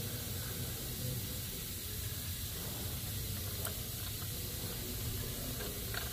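Steady hiss with a low hum underneath. Near the end come a few faint clicks as 12-point bolts are handled at the injector-cup removal tool.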